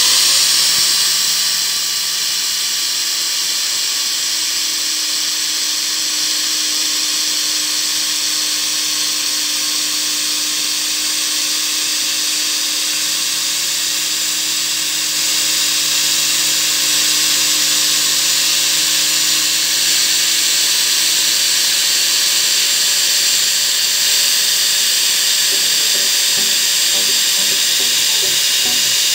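Electric angle grinder fitted with a paper disc, running at a steady high whine while the spinning paper disc is pressed into the plastic shell of a motorcycle helmet to cut it. It gets a little louder about halfway through.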